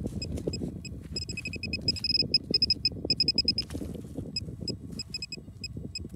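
Metal-detecting pinpointer beeping in short, same-pitched pulses, coming in quick runs and sparser near the end, as it is worked over a buried piece of zinc. Underneath, the crunch and rustle of gloved fingers digging through dry soil and stubble.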